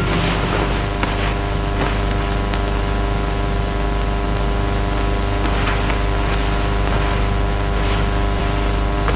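Steady hiss and hum of an old film soundtrack, with a few faint soft ticks.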